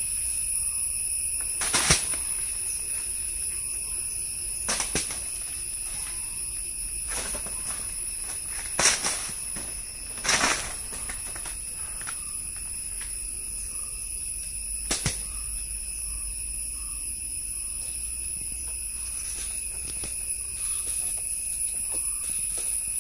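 Steady high-pitched insect chorus made of a few constant shrill tones, with a handful of short sharp knocks scattered through it.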